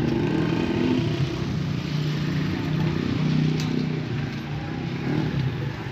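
Motorcycle engine running steadily, with a low hum that eases off a little near the end.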